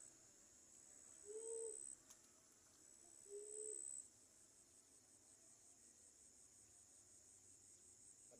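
Two soft, low cooing notes from a dove, a couple of seconds apart, over a steady high-pitched insect trill that turns pulsing about halfway through.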